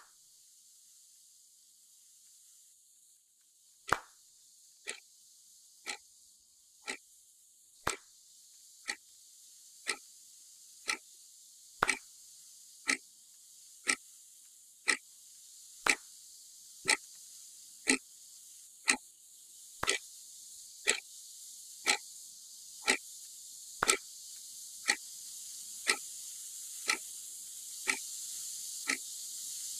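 Clock ticking about once a second, every fourth tick louder, over a steady hiss that slowly grows louder.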